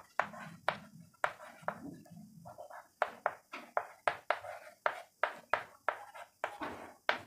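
Chalk writing on a chalkboard: a quick run of sharp taps, about three a second, with faint scratching between them as the chalk forms letters.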